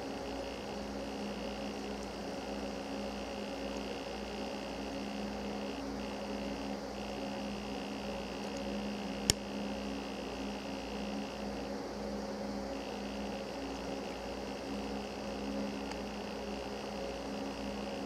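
Steady low electrical hum, with a faint high whine that drops out a few times and one sharp click about nine seconds in.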